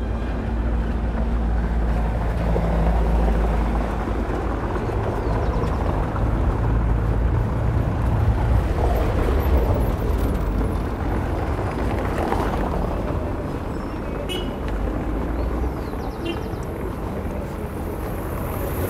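Street traffic: a motor vehicle's engine running close by with a low hum that fades out about halfway through, over steady outdoor noise, with a couple of short high chirps near the end.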